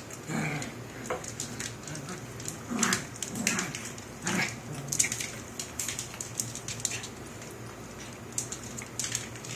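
Two small terriers play-fighting on a tiled floor: scuffling, with many quick clicks of claws on the tile and a few brief vocal sounds from the dogs in the first half.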